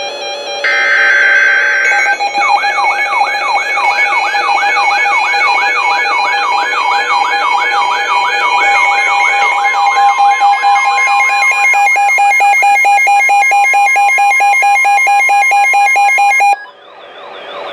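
NOAA Weather Radio Emergency Alert System alert: the last burst of the buzzy digital data header, then about fourteen seconds of a warbling, siren-like alert sweeping up and down about twice a second over a steady tone. The alert signals a severe thunderstorm warning and cuts off abruptly about a second before the end.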